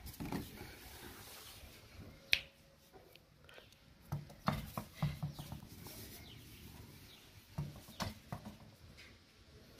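A tennis ball bouncing and hitting a concrete floor: a sharp tap, then scattered soft low thuds in small clusters.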